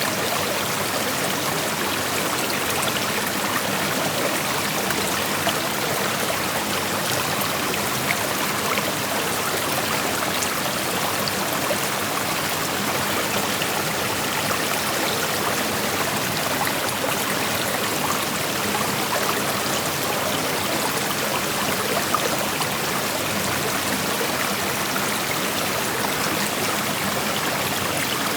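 Creek water flowing and rushing steadily over rocks, a continuous even rush with small splashes and trickles flickering through it.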